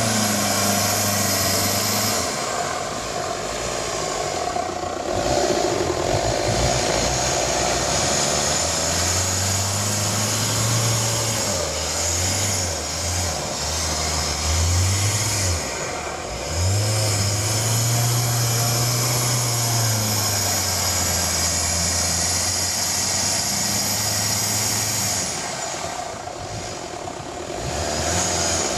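Nissan Mistral 4x4's engine revving hard and easing off again and again as it is driven through deep mud and water. It drops away briefly about halfway through and again near the end.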